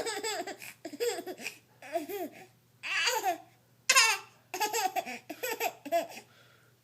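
Baby laughing in a string of short, high-pitched bursts, about eight of them.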